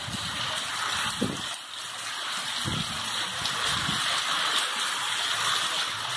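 Heavy rain pouring steadily onto a paved street, with a few brief low rumbles of wind gusting against the microphone.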